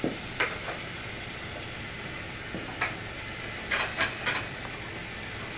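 Battery-powered TrackMaster toy trains running with a steady whir on plastic track, with several short plastic clicks and clacks about half a second in and again around three to four seconds in.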